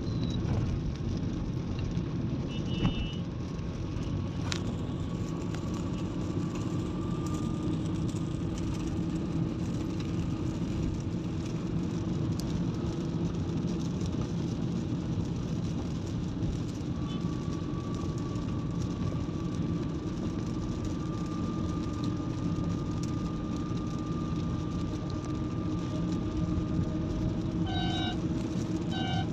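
Steady road noise inside a moving car on a wet highway: tyres hissing on the wet surface over a low engine and road rumble, with a faint steady whine.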